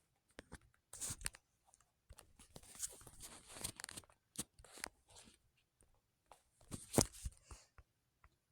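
Irregular rustling and scraping with sharp clicks, the loudest click about seven seconds in: close handling noise in a small room.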